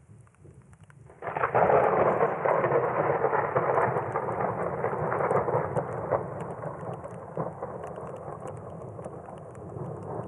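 A sudden thunderclap about a second in, rumbling on and slowly fading over several seconds, over light rain falling.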